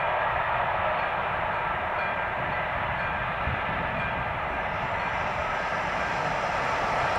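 Freight train of hopper wagons behind two electric locomotives rolling past, a steady rushing noise of wheels on rails.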